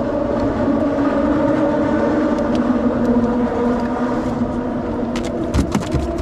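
Steady drone of road traffic crossing the bridge overhead, a hum with several steady tones in it. A few sharp clicks come near the end.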